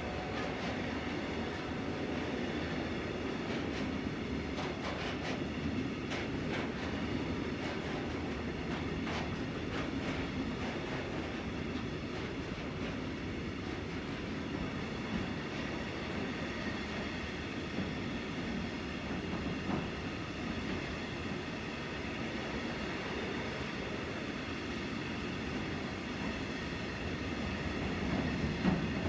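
Container freight train rolling past: a steady rumble of wagons on the rails, with a few clicks of wheels over rail joints in the first ten seconds or so.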